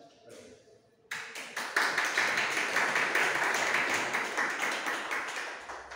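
Audience applauding. The clapping breaks out about a second in, swells to a full round and dies away near the end.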